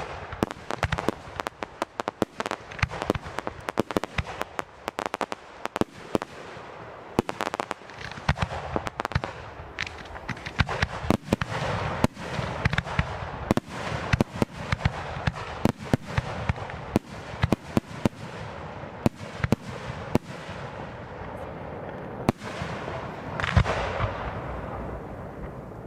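Aerial fireworks going off in a dense barrage, with many sharp bangs over continuous crackle. There is a louder cluster of bursts about three-quarters of the way in.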